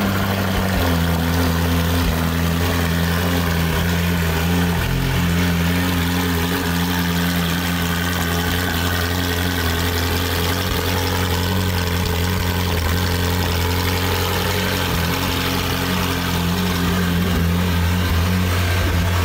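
Ferrari 458 Spider's flat-plane-crank V8, just started, idling steadily through its stock exhaust. It settles into the idle within about the first second, with a brief small change about five seconds in.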